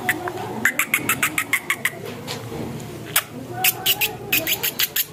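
A bird giving rapid runs of sharp clicking call notes, about seven or eight a second, in short bursts with brief gaps.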